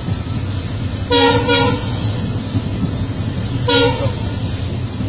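Steady low rumble of a moving train, heard inside a passenger coach. A horn toots twice in quick succession about a second in and once more near four seconds.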